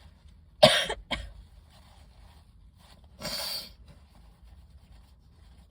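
A woman sneezes once, hard and loud, about half a second in, her nose irritated by book dust, followed by a short sharp breath about three seconds in.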